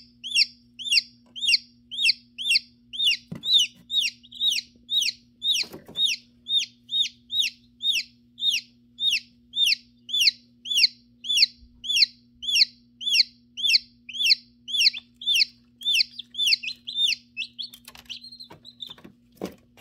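Newly hatching chick peeping, a long regular run of short high peeps at about two a second that stops a few seconds before the end. A steady low hum runs underneath.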